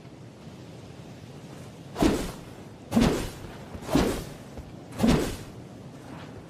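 Sword swished through the air four times, evenly about a second apart, each swish short and sharp.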